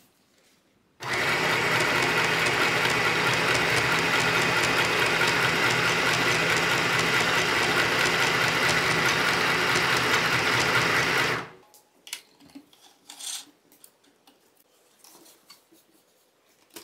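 Easymaxx compact sewing machine stitching through t-shirt fabric: its motor and needle run steadily at speed with a fast, even chatter and a high hum. It starts about a second in and stops abruptly after about ten seconds. Faint scattered clicks and rustles follow as the fabric is handled.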